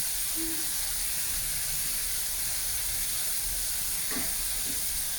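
Spice paste sizzling steadily in hot oil in a pan as it is sautéed, with a couple of faint knocks near the end.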